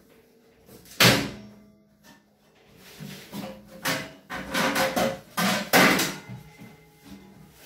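Metal oven of a gas cooker knocked and handled during cleaning: a sharp knock with a short ring about a second in, then a run of knocks and clatter as things are moved inside the open oven.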